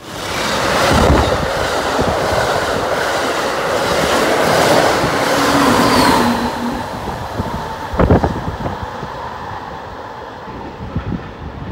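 Amtrak passenger train passing close at speed: steady wheel-and-rail noise with clickety-clack over the rail joints, easing after about six seconds as the Siemens Charger locomotive goes by. A sharp knock about eight seconds in.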